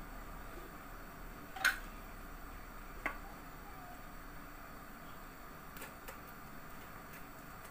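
A plastic mayonnaise squeeze bottle being handled and squeezed, its mouth poked with a thin wooden stick: a sharp pop a couple of seconds in, a smaller click about a second later and a few faint ticks near the end, over quiet room tone. The bottle is hard to squeeze because the paper seal in its mouth has only been pierced.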